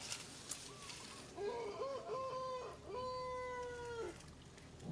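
Baby macaque crying: a few short wavering coos about a second and a half in, then one long steady coo that drops in pitch at the end.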